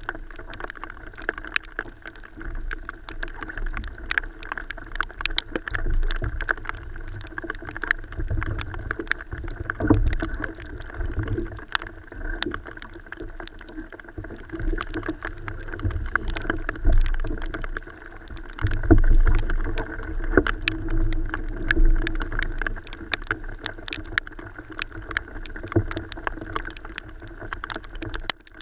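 Water sloshing and slapping against a kayak hull, in low surges, with many small sharp ticks and knocks from the boat and gear being handled.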